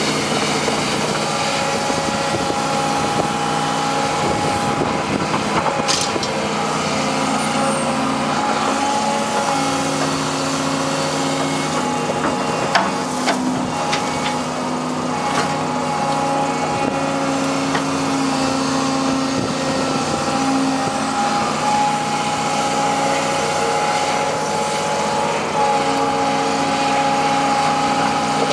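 Daewoo hydraulic excavator's diesel engine running steadily under working load. A hydraulic whine rises and drops away as the boom and bucket move. A few sharp clanks of junk being grabbed come through, the loudest about 13 seconds in.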